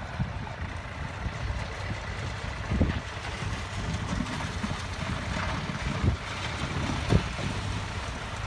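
Low steady rumble of heavy diesel construction machinery idling, with wind buffeting the microphone in a few sharp low thumps.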